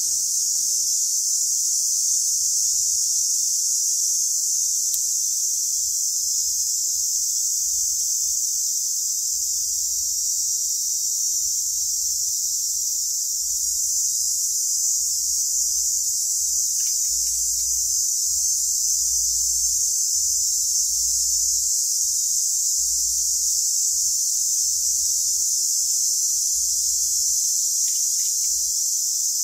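A loud, steady, high-pitched chorus of forest insects that holds without a break.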